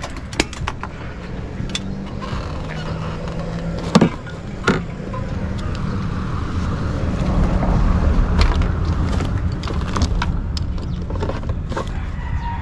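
Motorcycle engine running at a steady idle through an aftermarket exhaust, with a couple of sharp clicks about four seconds in and the level swelling slightly in the middle.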